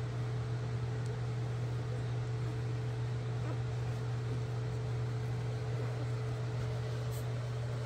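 A steady low hum with a fainter higher tone above it, unchanging throughout.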